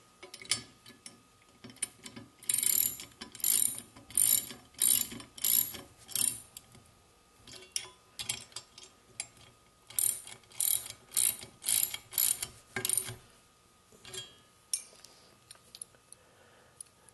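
Ratchet wrench clicking as it tightens the lock nuts on the ripper blade of a Jiffy STX ice auger blade assembly. The clicks come in two runs of quick, evenly spaced strokes with a pause between, plus a few lighter clicks.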